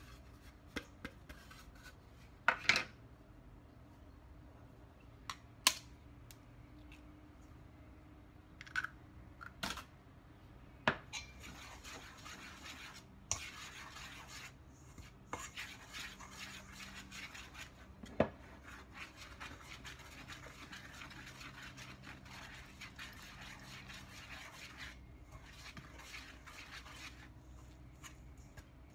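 Metal utensil stirring and scraping dry flour in a stainless steel mixing bowl, a steady scratchy rasp through the second half. Before that, several sharp taps and clinks against the bowl.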